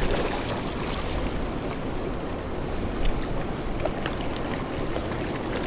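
Steady rushing noise of fast river water in the tailwater below a dam, with a few faint clicks.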